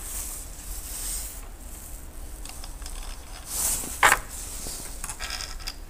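Handling noise from a small 3D-printed plastic cap cannon being worked by a gloved hand: light rustling and faint ticks, with one sharper click about four seconds in.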